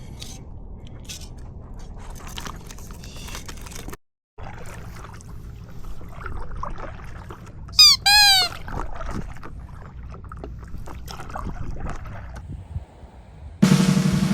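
Water sloshing and gurgling around a stand-up paddleboard, with small knocks and clicks. About eight seconds in there is a loud, short pitched call in two notes that each rise and fall, and drum-kit music starts near the end.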